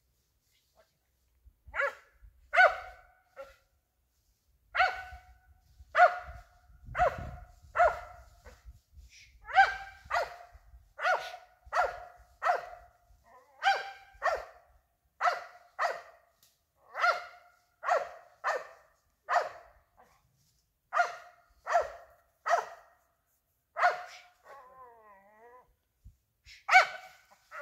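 A feist squirrel dog barking steadily, a short bark about every second, with a brief pause near the end. This is the steady chop of a squirrel dog barking treed.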